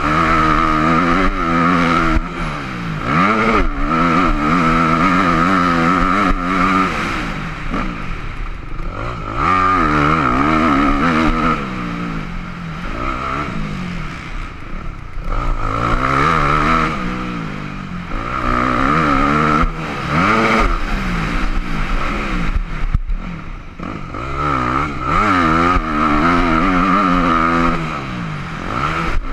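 Yamaha YZ250F motocross bike's 250cc single-cylinder four-stroke engine racing around a dirt track, heard from the rider's helmet. Its pitch climbs and drops again and again as the rider shifts and gets on and off the throttle, with a few short lulls off the gas.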